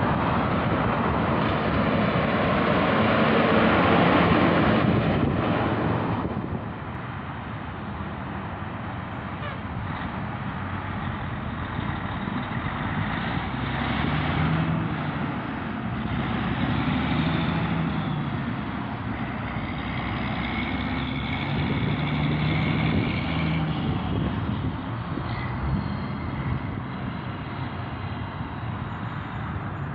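Road traffic: a vehicle passes close in the first few seconds, then the noise settles to a lower steady rumble of traffic with a heavy truck's engine running.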